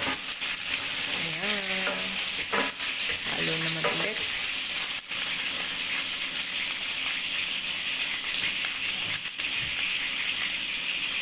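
Steady sizzle of frying in hot oil as squash cubes are stirred with a wooden spoon among sautéed onion and garlic in a stainless steel pot.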